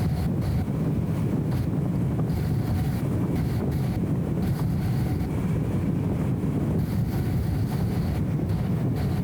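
Steady low rumble of a BMW E34 M5 Touring cruising, its straight-six engine and road noise muffled into a dull drone by the camera's anti-wind audio filter.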